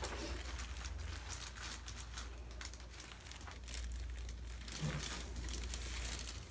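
Light crinkling and rustling of a person turning over on a chiropractic table, over a low steady hum.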